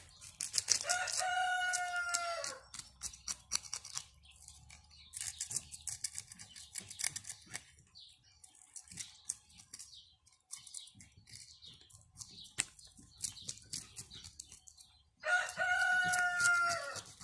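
A knife scraping scales off crucian carp in quick repeated strokes on a wooden cutting board. A rooster crows twice, about a second in and again near the end, louder than the scraping.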